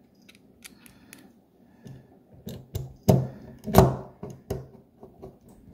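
Small parts being handled and a screwdriver starting a screw into a LineViper tubing tool's finger guard: scattered light clicks of metal and plastic, growing busier about halfway, with two louder knocks around three and four seconds in.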